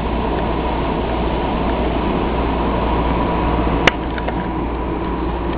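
Steady background hiss with a low hum underneath, broken by one sharp click a little under four seconds in.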